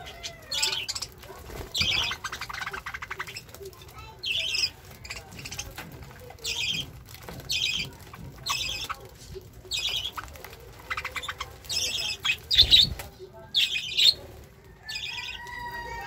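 Flock of budgerigars squawking, short harsh calls roughly once a second, with a low thump late on and a brief whistled call near the end.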